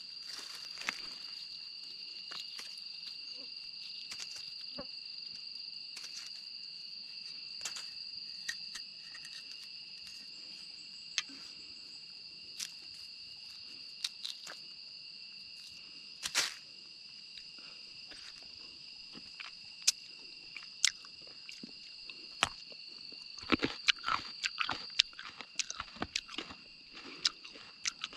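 Hands tearing open spiny green fruit husks and handling dry leaf litter: scattered sharp cracks and crunches, coming faster in the last few seconds. Under them runs a steady, high insect drone on two pitches.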